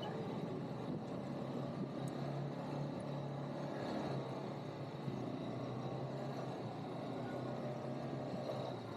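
ATV engine running at a steady, low hum while riding, with a rushing noise of the ride over it.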